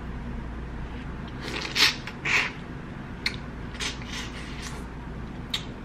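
Close-miked mouth sounds of eating a sauce-coated colossal tiger shrimp: two short, loud wet slurps between about one and a half and two and a half seconds in, then scattered soft smacks and clicks of chewing.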